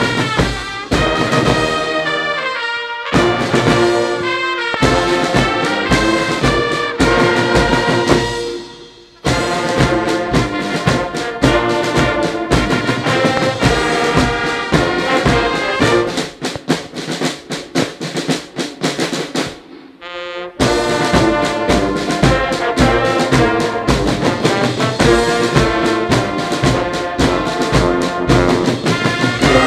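Brass band with drums playing, the music breaking off briefly twice, about nine and twenty seconds in.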